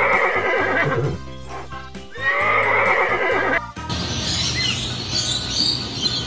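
A horse whinnying twice, each neigh lasting about a second and a half with a wavering pitch, over background music. About four seconds in, the whinnying gives way to faint, high bird chirps.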